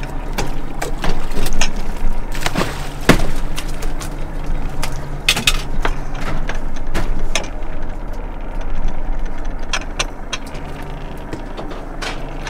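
The fishing boat's engine hums steadily while many sharp clicks and knocks from gear being handled on deck come irregularly over it, several louder ones in the first half.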